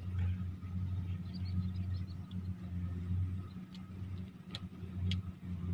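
An engine running steadily at low speed, a low hum that wavers in loudness. Faint high bird chirps come about a second in, and a few sharp clicks come near the end.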